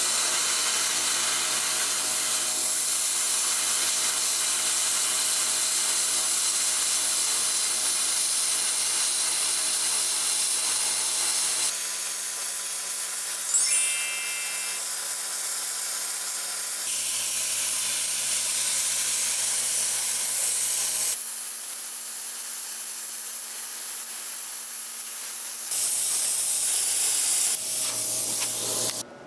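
Plasma cutter's arc and air jet hissing steadily while it cuts through 12 mm steel plate, with a steady hum from the machine's built-in air compressor underneath. The hiss jumps abruptly in level a few times along the way.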